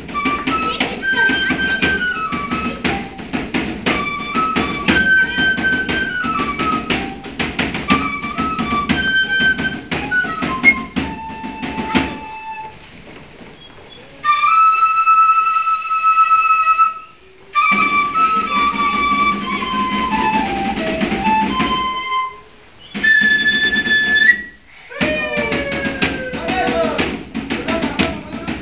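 Flute playing a quick, stepped folk tune for a traditional Andean condor dance. After a short break about halfway it moves to long held notes and a falling run of notes.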